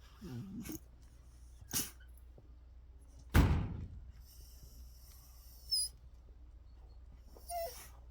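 A short animal whine, likely a dog, then a few separate knocks, the loudest a heavy thump about three seconds in.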